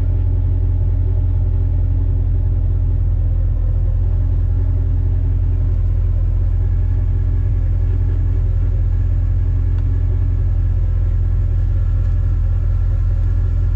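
Airboat engine and propeller running steadily as the boat cruises, a loud, even, deep hum with no change in pitch.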